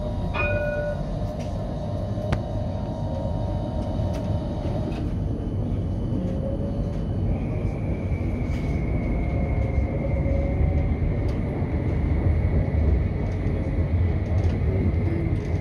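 CAF Urbos 3 tram running slowly, heard from inside its front driver's cab: a steady low rumble of the running gear on the rails. About halfway through, a steady high electric whine from the traction drive comes in and holds.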